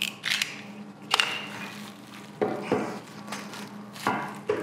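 Foil and plastic wrapping crinkling in a series of short crackly bursts as it is cut open with a utility knife and handled, over a steady low hum.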